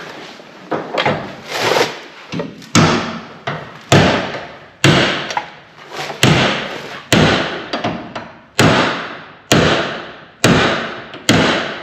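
Hammer blows driving a steel door hinge pin into the hinge bushing of a 1968 Chevelle. A few lighter taps come first, then from about three seconds in hard strikes land about once a second, each ringing briefly. The pin fits tight in the bushing, so it has to be hit hard.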